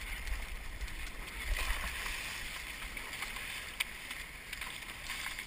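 Sea water rushing and splashing around an Epic V10 Sport surfski's hull and paddle blades as it is paddled through choppy, breaking water, over a low wind rumble on the deck-mounted microphone. One sharp click a little before four seconds in.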